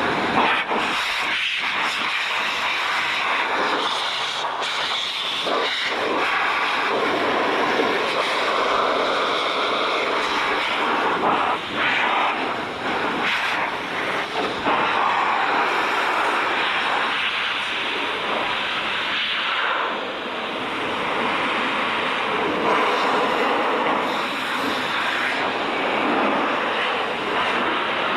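Heated pet dryer used as a motorcycle blower, running steadily with a loud rushing of air that rises and dips slightly as the nozzle is moved over the bike to blow the water off.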